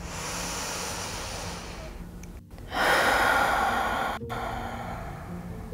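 A woman taking a deep clearing breath through the mouth: a long inhale, then about three seconds in a louder exhale that fades off.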